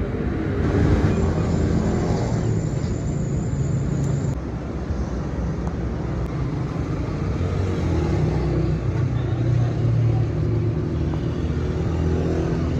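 A steady low mechanical rumble, like an engine or machine running, swelling and easing slightly.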